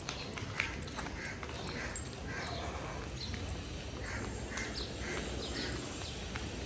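A series of short, high animal calls, a few each second, over a steady low outdoor hum.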